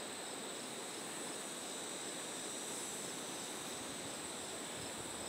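Steady late-summer chorus of singing insects, an unbroken high-pitched trilling at two constant pitches.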